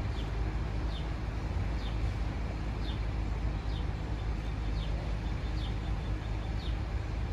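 A bird calls a short, falling high note about once a second over a steady low rumble.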